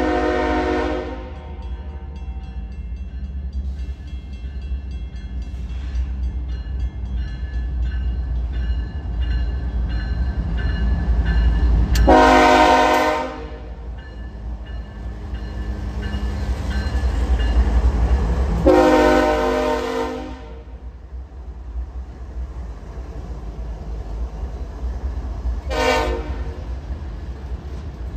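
Train horn, a chord of several tones, sounding in blasts: one ending about a second in, two longer blasts around the middle and two-thirds of the way through, and a short toot near the end. Under it runs the steady low rumble of a train.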